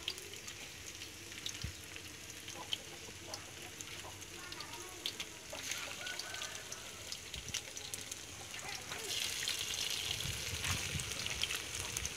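Blocks of tofu frying in hot oil in a steel wok: faint crackling and small pops at first, the sizzle growing louder and denser about nine seconds in as the oil heats up around the tofu.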